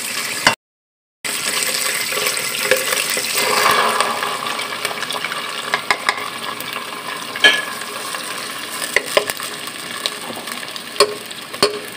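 Oil sizzling in a pan as a blended onion-tomato paste fries and is stirred with a spatula, with a few sharp clicks of the spatula against the pan. The sound cuts out completely for a moment near the start.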